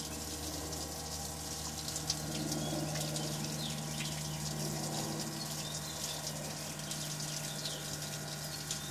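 Jaguar OEM electric water pump running steadily with a low, even hum, pumping water out through its hose as the bucket nears empty.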